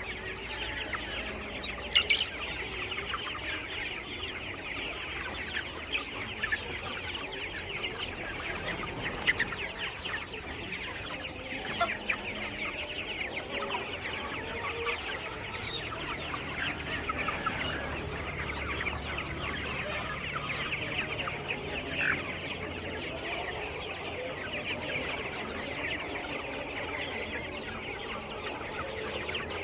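A flock of native free-range chickens (ayam kampung) clucking and calling continuously, with a few louder sharp calls now and then.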